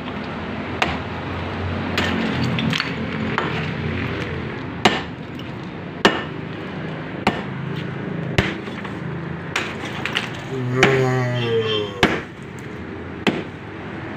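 A metal bar striking and chipping the concrete and hollow-block front of a tomb: about a dozen sharp blows, roughly one a second.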